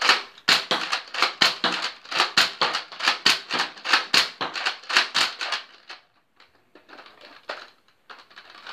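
Nerf Recon blaster being primed and fired over and over: a fast run of sharp plastic clacks from the slide and trigger, about four a second. It stops about six seconds in, followed by a few fainter clicks of handling.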